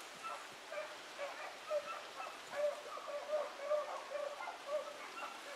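Rabbit dogs baying as they run a rabbit: a string of short, even-pitched bawls, two or three a second, from more than one dog.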